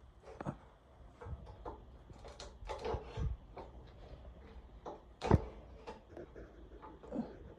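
A series of irregular knocks and clicks, with one sharp, loud knock a little after five seconds in.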